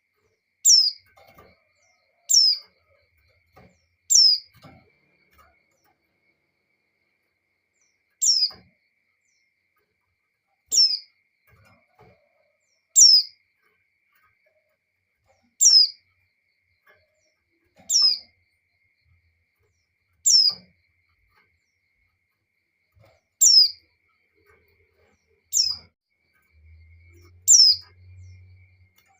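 Female white-eye (pleci) repeating a single high call note that falls sharply in pitch, about a dozen times at roughly two-second intervals with one longer pause. It is the female's breeding call used to lure males.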